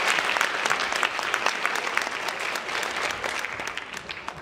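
Audience applauding, the clapping gradually thinning out and fading toward the end.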